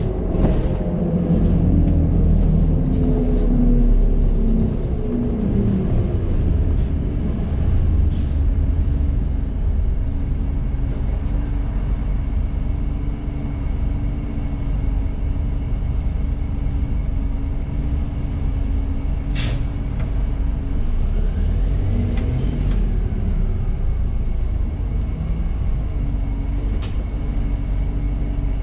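On board a 1998 New Flyer C40LF transit bus slowing to a stop in traffic: the engine and driveline note falls away, then settles into a steady hum at idle. About two-thirds through there is a brief sharp hiss of air from the brake system. Shortly after, the engine note briefly rises and falls again as the bus creeps forward.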